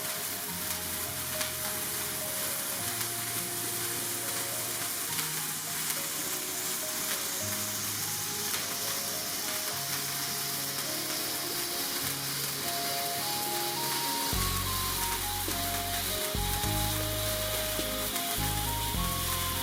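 Birthday-cake sparkler candle fizzing steadily, a dense hiss, under background music of short plucked-sounding notes; a heavier bass line comes in about fourteen seconds in.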